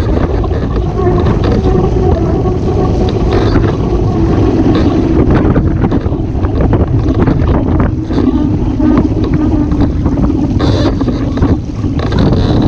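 Wind buffeting the boat-mounted microphone over rushing water and spray as a Waszp sailing dinghy moves at speed. A faint, wavering hum runs underneath.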